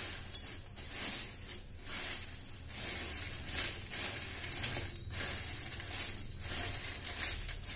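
Crisp fried cassava sticks rustling and crackling against each other and a steel bowl as a hand tosses and mixes them, with a few sharper clicks among the irregular scratching.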